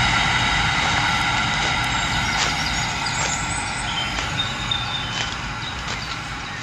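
A vehicle engine running with a steady whine, slowly fading.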